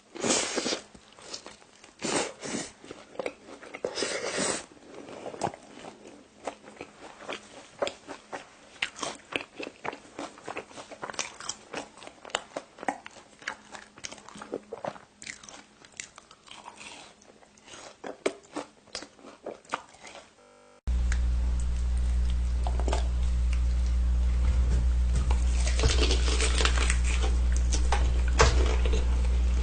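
Close-miked crunchy bites and chewing of food, with many sharp crunches. About two-thirds of the way through, the sound cuts abruptly to a louder steady low hum, and some crunching continues over it.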